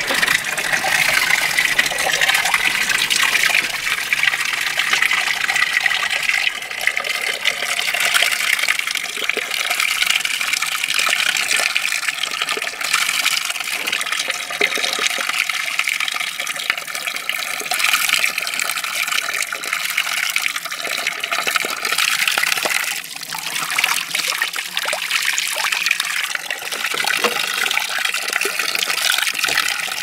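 Spring water pouring steadily from a fountain spout and splashing into a stone basin.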